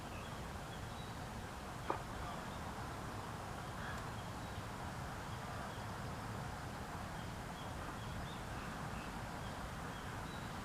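Faint outdoor early-morning ambience with small repeated bird chirps over a steady background hiss, and a single sharp click about two seconds in.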